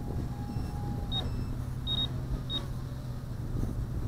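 Three short high beeps, the middle one longer, from the FPV racing drone's low-voltage warning, over a steady low rumble of wind. The pilot is pretty sure the beeping comes from the balance-plug power connector, which limits the current reaching the motors.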